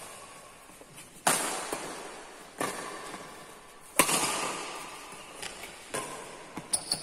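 Badminton rackets striking the shuttlecock in a rally: three sharp cracks about a second and a half apart, the loudest about four seconds in, each echoing through a large hall. Lighter hits and clicks follow near the end.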